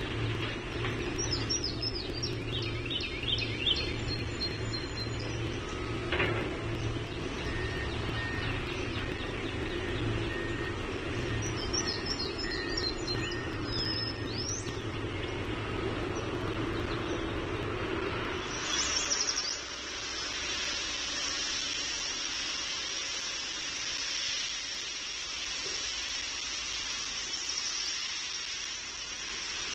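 Nest-camera outdoor sound: a steady low rumble of distant traffic, with small songbirds chirping in two short runs. About two-thirds of the way through it changes abruptly to a steady high hiss.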